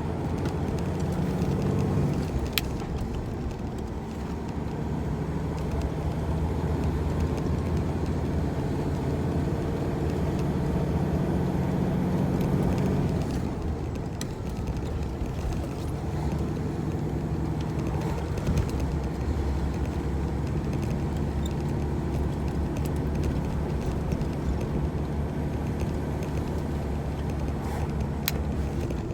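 Large tractor-trailer's diesel engine running under load, its note changing about two seconds in and again near the middle. Two sharp clicks, one near the start and one near the end.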